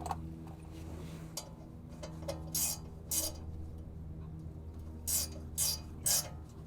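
Hand tools working on metal: about five short metallic clicks and clinks, the loudest in the second half, over a steady low hum.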